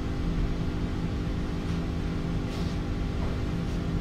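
Steady low electrical hum with a faint hiss, with no speech. A few faint, brief rustles come through in the second half.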